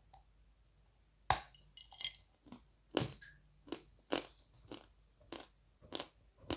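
A person biting into and chewing a hard, dry lump of edible mineral, close to the microphone. A sharp crunching bite comes about a second in and is the loudest sound, followed by short, crisp chews about three every two seconds.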